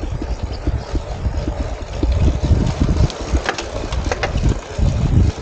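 Wind buffeting the microphone of a helmet-mounted camera on a mountain bike ridden over loose sand, a gusty low rumble. A few sharp clicks come a little past the middle.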